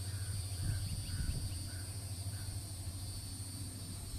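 Outdoor ambience of steady high-pitched insect buzzing over a low steady rumble, with a series of five short calls, about two a second, that stop about halfway through.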